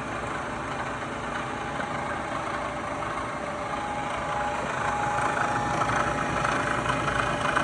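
Bridgeport ProtoTrak CNC milling machine running with a steady mechanical hum, and a thin steady whine joining about four seconds in as the sound grows a little louder.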